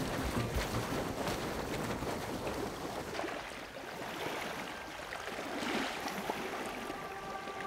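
Small waves on open water lapping and splashing, an even wash of water noise.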